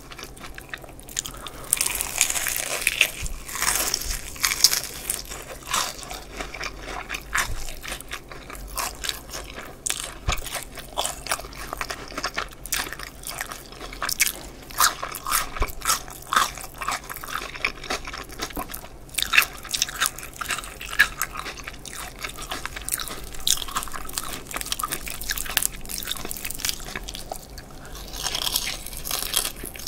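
Crispy fried chicken drumsticks bitten and chewed close to the microphones: a steady run of crunches through the battered skin with chewing between them, thickest about two to four seconds in and again near the end.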